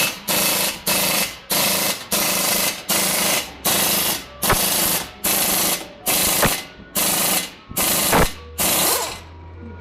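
Air tool, such as an impact wrench or air hammer, worked in about a dozen short bursts, roughly one and a half a second, with a few sharp knocks between them.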